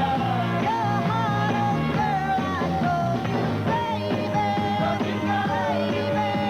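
A 1960s-style rock and roll record playing, with a sung melody over a full band.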